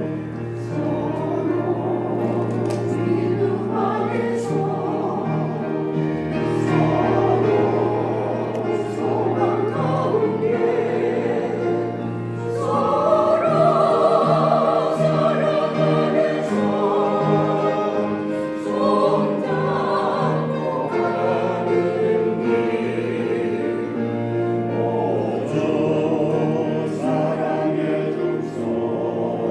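Choir singing a hymn in harmony, with long held notes.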